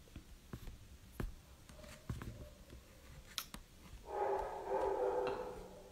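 A few faint clicks, then about four seconds in a woman softly hums one steady note for about a second and a half.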